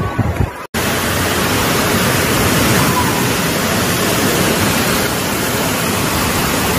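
Steady, loud rushing of water, which cuts in abruptly less than a second in after a few low thuds.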